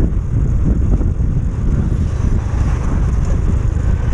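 Wind rumbling on the microphone of a moving Honda Biz 110i step-through motorcycle, with its small single-cylinder four-stroke engine running steadily underneath.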